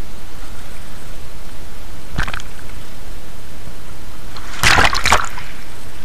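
Small waves washing in over rocks right at the microphone, with a short splash about two seconds in and a louder burst of splashing near the end.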